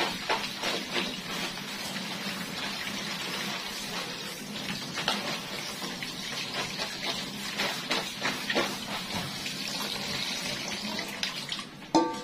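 Tap water running from a hose into a plastic basin while hands wash vegetables in a plastic colander, with steady splashing and small knocks. A single sharper knock comes near the end as the colander is lifted.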